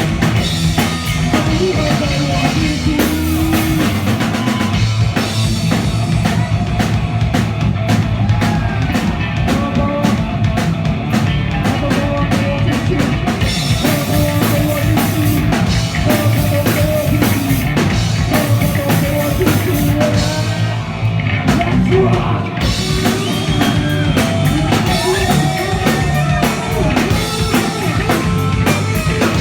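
Punk rock band playing live: loud drum kit, distorted electric guitar and bass, with shouted singing.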